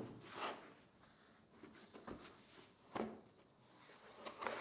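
Small Bosch tool case being opened and its contents handled: a few short knocks and scrapes, about half a second in, about three seconds in and again near the end.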